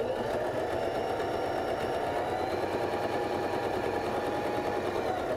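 Baby Lock Joy sewing machine sewing a straight stitch through fabric, motor and needle running smoothly at a steady speed. It picks up speed briefly at the start and stops suddenly at the end.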